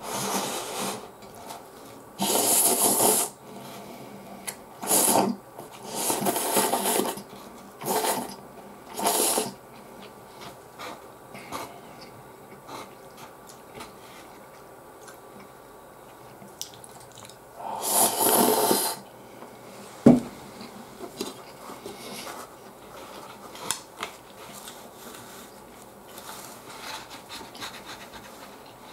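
A person slurping instant chicken ramen noodles off chopsticks: a string of loud slurps over the first ten seconds and one more long slurp about 18 seconds in. A single sharp knock follows shortly after, with quieter chewing and small clicks between.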